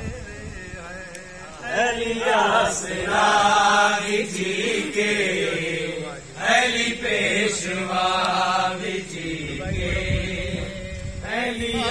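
Punjabi folk singing: a voice holding long, wavering notes in a chant-like style, growing louder about two seconds in.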